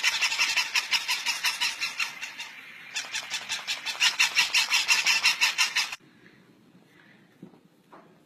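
Several battery-operated plush toy dogs going off together in a rapid, even, high-pitched chatter of about eight pulses a second, cutting off suddenly about six seconds in. After that, faint room sound with a few soft knocks.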